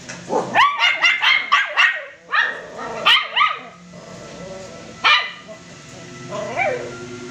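Puppies in a wire crate yapping: a quick run of six or seven sharp barks in the first two seconds, then single barks every second or so, and a softer one near the end.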